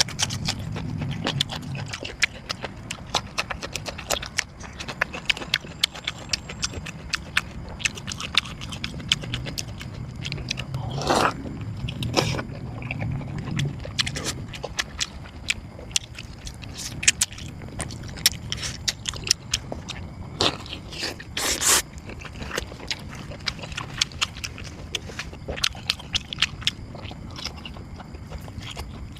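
Close-miked eating sounds: a person chewing and biting food, with a steady run of sharp, crisp clicks and crunches. A few longer, louder mouth sounds come near the middle and again about three-quarters through.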